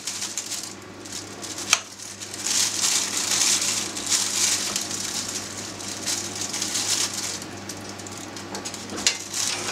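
Plastic roasting bag crinkling as it is held open around a hot pork roast, with a metal spoon scooping the hot juices over the meat and clicking sharply against it once early on and a few times near the end. A soft sizzling hiss from the hot juices runs underneath.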